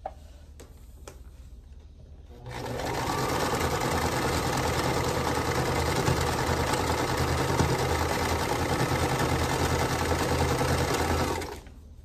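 Singer Start sewing machine stitching a seam, starting a couple of seconds in, running at a steady speed for about nine seconds and stopping shortly before the end.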